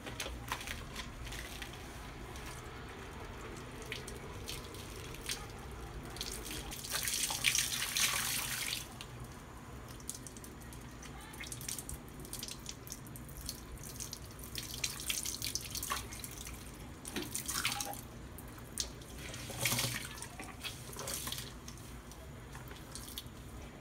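Tap water splashing into a laundry sink as a soapy sweatshirt-fleece cloth diaper insert is rinsed of anti-residue shampoo and squeezed out. There are louder gushes about seven to nine seconds in, around fifteen seconds and around twenty seconds.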